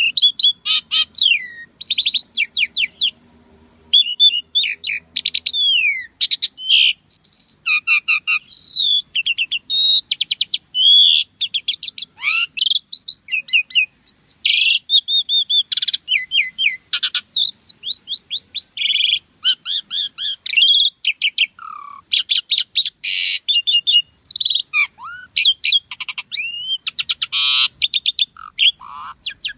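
Asian pied starling (jalak suren) singing vigorously and almost without pause: a fast, varied stream of whistles, rising and falling glides, and rapid rattling trills and clicks, rich in fill phrases.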